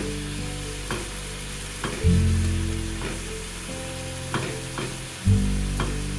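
Onion-and-tsuyu broth simmering and sizzling in a pan as breaded chicken tenders are set into it, with sharp clicks of chopsticks several times. Low background music chords enter about two seconds in and again near the end, ringing and slowly fading, and are the loudest sounds.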